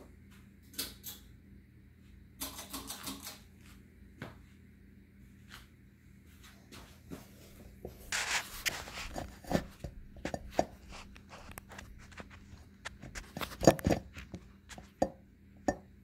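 Harbor Breeze Bellhaven ceiling fan switched on at its pull-chain switch, with sharp clicks and brief chain rattles scattered through, thickest in the second half, over a steady low hum as the blades spin up.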